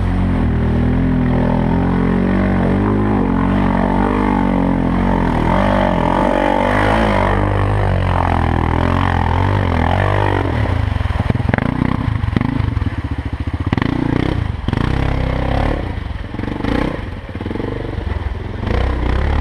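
4x4 ATV engine running while riding, a steady engine note for the first half. From about ten seconds in it turns uneven, with knocks and dips in loudness.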